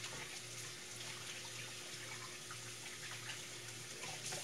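Kitchen tap running into the sink while hands are washed under it, shut off right at the end.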